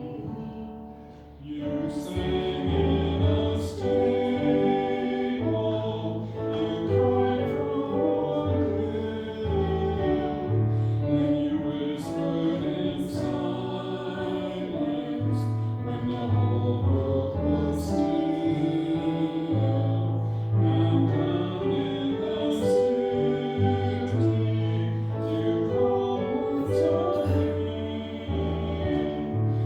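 Church music: several voices singing a hymn over instrumental accompaniment with a stepped bass line.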